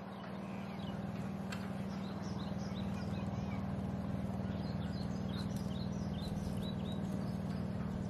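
A steady low engine drone, with small birds chirping in quick high series over it.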